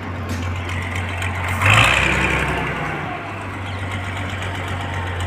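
A heavy engine hums steadily through a demolition, and about two seconds in a sudden loud crash of falling debris rises and fades away over a second or so.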